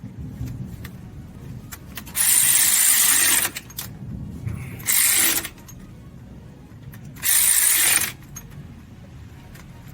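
Power tool driving the transmission's mounting bolts into a Suzuki Samurai, in three short bursts about two seconds apart, with the bolts run in snug rather than fully tightened.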